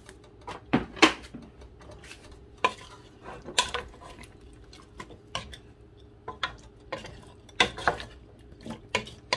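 Utensil clinking and scraping against a cooking pot while stirring, in irregular knocks one or two a second, with a faint steady hum underneath.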